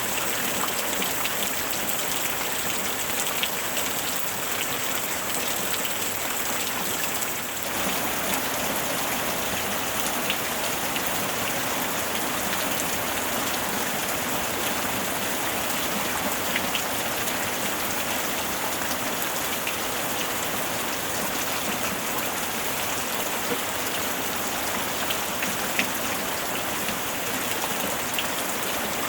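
Steady rain falling, an even hiss with scattered sharper drop ticks on a surface. It dips briefly and shifts slightly about seven and a half seconds in.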